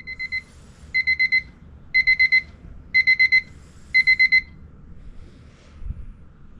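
Electronic alarm beeper sounding the classic pattern of four quick beeps repeated once a second, five times, the first group fainter, then stopping.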